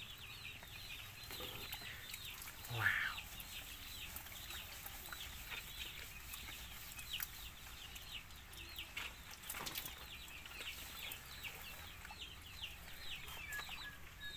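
A duckling peeping over and over: a steady run of short, high, falling peeps, several a second. There is one brief louder sweep about three seconds in.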